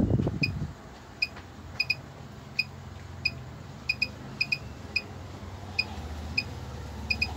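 A Sunshine bench power supply giving short, high beeps at uneven intervals, about a dozen, as its voltage knob is turned down step by step, one beep per click. A loud low rumble dies away within the first second, and a faint low hum runs under the beeps.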